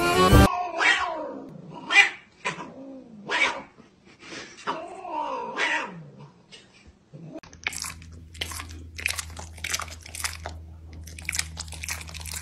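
A cat meowing repeatedly, about six drawn-out calls rising and falling in pitch. About halfway through, the meows give way to a quick run of crisp crunching clicks over a low steady hum.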